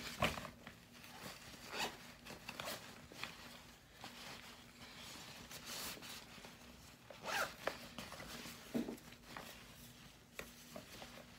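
A quilted cloth bag being handled and packed: irregular rustles and short scrapes of fabric and items, with several sharper scrapes a second or two apart.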